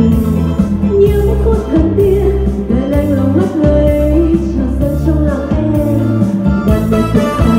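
Music: a pop song with a singing voice over a steady band beat.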